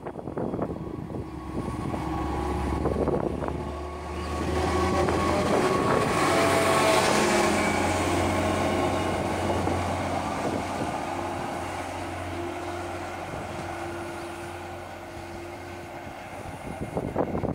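DB class 646 (Stadler GTW 2/6) diesel multiple unit passing close by: a low diesel drone with a whine above it, loudest as the train goes past about six to eight seconds in, then fading as it draws away.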